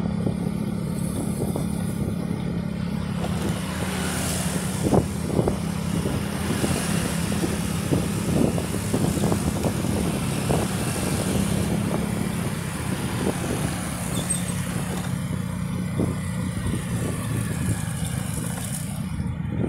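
Motorcycle engine running at a steady cruise while riding, with a constant low hum, wind noise and occasional short buffets.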